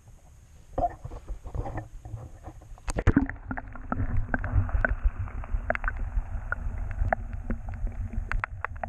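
An action camera is plunged underwater about three seconds in, after a few light water splashes. From then on the sound is muffled: a steady low rumble with bubbly clicks and ticks of water against the camera housing.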